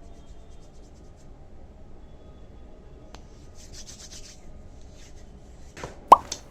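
Small handling sounds: a brief rustle about halfway through, then a few sharp clicks near the end, the loudest with a short ringing plop-like tone.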